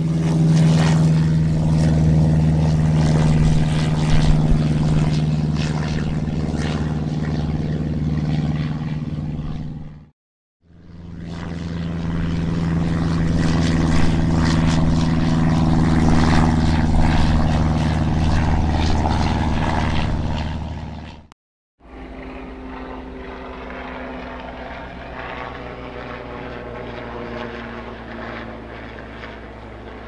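Airplane engine running steadily with a strong low hum, in three separate stretches. Each of the first two cuts off abruptly into a brief silence, at about 10 and 21 seconds in. The third stretch is quieter.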